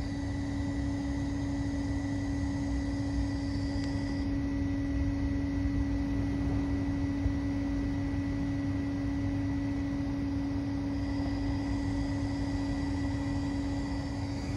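Steady mechanical hum: a constant drone with a low rumble beneath, holding one pitch and level without revving or change.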